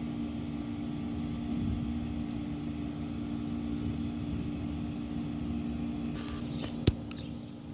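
A steady mechanical hum made of a few close, low tones over a faint rumble, with one sharp click about seven seconds in.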